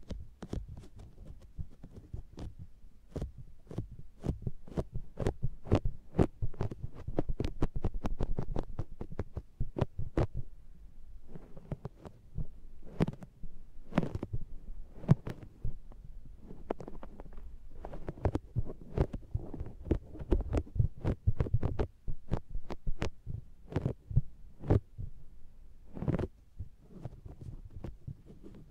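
Makeup sponge being pressed and patted against the ear of an SR3D binaural microphone, heard from inside the mic: close, muffled thumps with sticky, suction-like pops as the sponge clings and lifts off, irregular, a couple or more per second.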